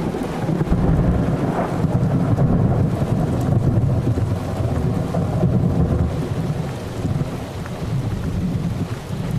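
Thunderstorm: a long rolling rumble of thunder that builds about a second in and eases off near the end, over steady rain.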